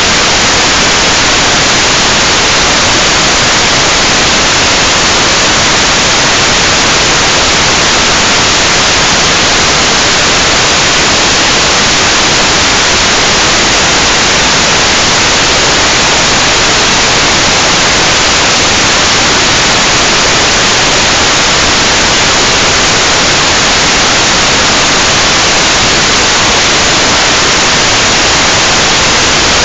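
Loud, steady static hiss from an analog FPV video receiver that is picking up no signal from the quad's video transmitter.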